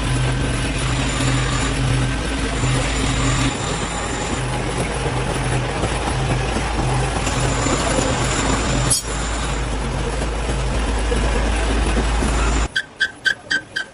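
Loud, steady machinery noise with a low hum and a pulsing drone, broken by one sharp click about nine seconds in. Near the end it cuts off abruptly and gives way to a rapid series of short, high pulsing tones.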